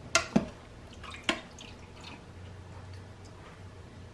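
Metal tongs clicking against a pressure cooker's inner pot as a piece of cooked oxtail is lifted out and set on a plate. There are three sharp clicks in the first second and a half, then a few fainter ones.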